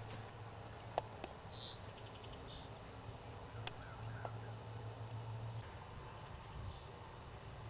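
Quiet room ambience with a steady low hum, a sharp click about a second in and another near the middle, and a few faint high chirps soon after the first click.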